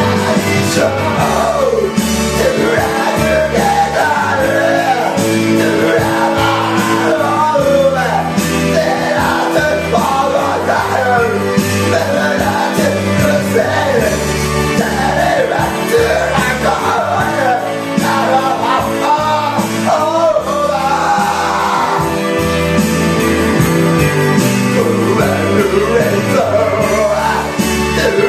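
A man singing loudly into a microphone over a karaoke backing track, his voice at times pushed toward a shout.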